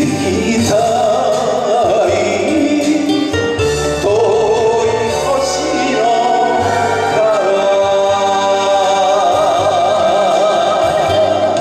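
A man singing a Japanese song into a microphone over a karaoke backing track, his voice with a wide vibrato; about seven seconds in he takes a long held note that lasts almost to the end.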